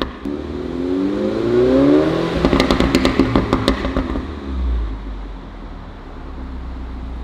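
Mini Cooper S F56's turbocharged four-cylinder engine through a REMUS cat-back sport exhaust with its valves open: one rev rising for about two seconds, then a burst of crackles and pops as the revs drop, settling to a low idle rumble.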